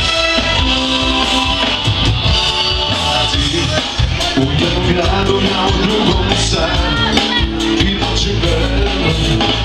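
Live band playing loud amplified pop music, with keyboard and drums and a sung vocal line over a heavy low end.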